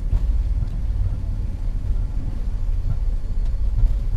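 Steady low rumble inside the cockpit of a BAe 146-300 slowing on the runway after landing, its four turbofans at ground idle and its wheels rolling, with a few faint knocks from the airframe.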